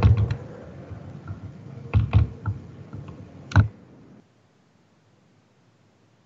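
Scattered clicks and knocks at a computer, the loudest at the start, around two seconds in and around three and a half seconds in. The sound cuts out abruptly just after four seconds.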